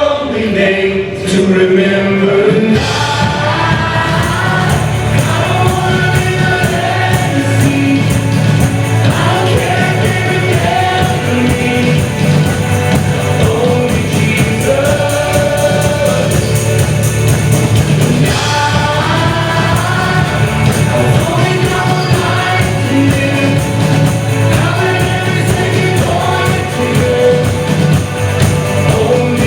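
Congregational gospel worship music: voices singing together in sustained sung lines over a steady instrumental accompaniment.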